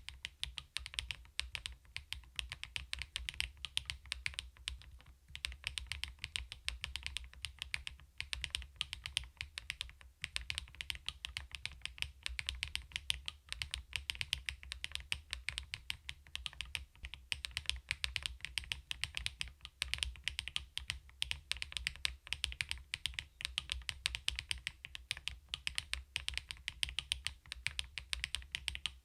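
Fast, continuous typing on a CoolKiller VIVID67 full-aluminium mechanical keyboard: rapid key clicks with a low thock under each, pausing briefly twice in the first third.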